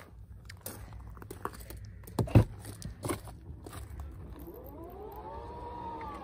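Footsteps crunching on gravel, with one loud thump about two seconds in. Then the Tesla Model X's powered door opens with an electric motor whine that rises and falls back in pitch over about two seconds.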